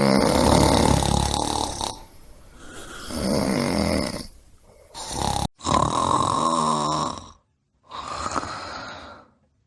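A series of about five loud snores, one after another, with short pauses between them. The later snores are broken by sudden cuts to silence, as if separate recordings were joined.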